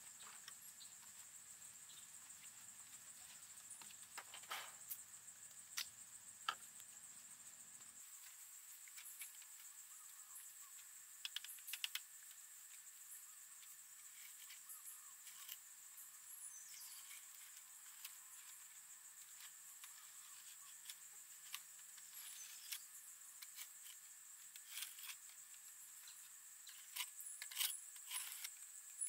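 Faint, steady high-pitched insect chirring, with scattered small clicks and taps throughout, a little busier near the end.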